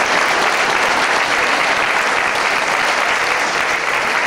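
Theatre audience applauding, a steady round of clapping.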